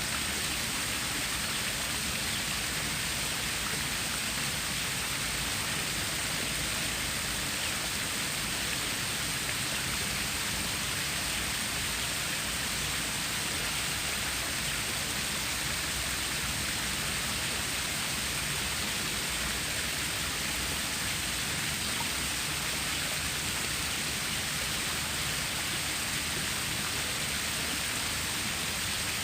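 Water of a stream rushing steadily, an even hiss that does not change.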